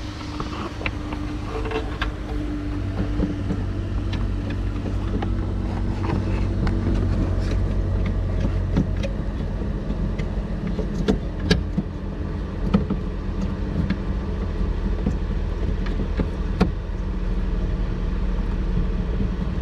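Steady low mechanical hum, like an engine running nearby, with scattered light clicks and taps from a bulb socket and its plastic housing being handled while the socket is worked back into a car's daytime running light housing; a few sharper clicks come in the second half.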